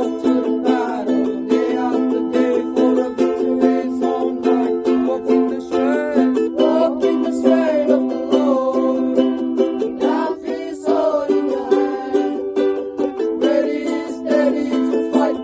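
Music led by a strummed ukulele, with a bending melody line over the steady chords.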